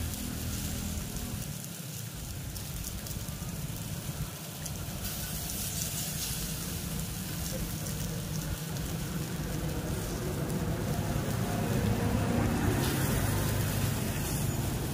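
Meat sizzling and crackling on a domed moo kratha grill pan over a charcoal clay stove, over a low rumble of road traffic that grows louder about two-thirds of the way through.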